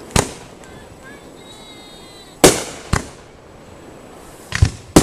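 Aerial fireworks shells bursting: about five sharp bangs, each trailing off in an echo, the loudest about halfway through and two close together near the end.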